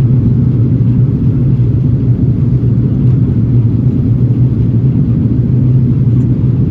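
Steady cabin noise inside an Airbus A330-900neo on approach: a loud, even drone from its Rolls-Royce Trent 7000 engines, with a low hum under a rushing noise.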